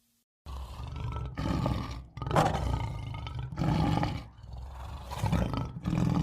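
A big cat roaring: a run of deep, rough roars, about four of them, each a second or two long, starting about half a second in.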